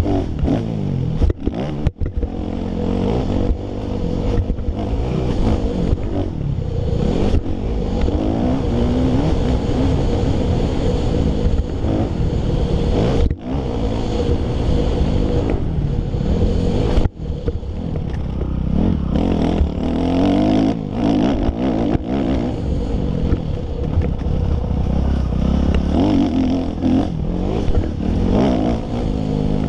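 2005 Kawasaki KX250F four-stroke single-cylinder motocross bike engine revving up and down with the throttle as it is ridden over dirt, heard from the rider's helmet. The sound dips sharply for a moment a few times.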